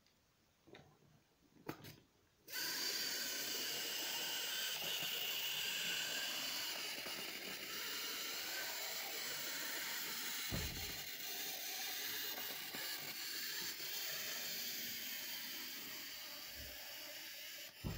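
A wind-up clockwork toy aircraft's spring motor whirring steadily as it runs across a cardboard box lid, starting after a few light clicks. The whir slowly weakens, with a low thump about halfway, and cuts off suddenly right at the end as the spring runs down.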